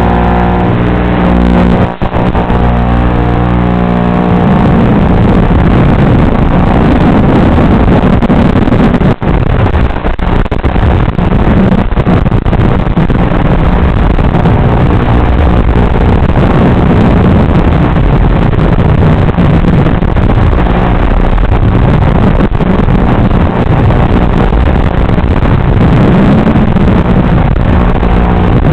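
Small FPV racing quadcopter's brushless motors and propellers, heard on board. A steady whine for the first few seconds, then the pitch keeps rising and falling as the throttle changes through the turns.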